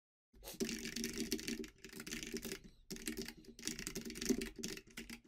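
Typing on a computer keyboard: a run of quick keystrokes entering a line of code, with short pauses between bursts.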